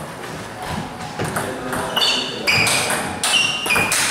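Table tennis rally: the celluloid ball clicking sharply off the rubber paddles and the Donic table top in quick alternation, each hit with a short high ping. The hits start about two seconds in and come roughly twice a second.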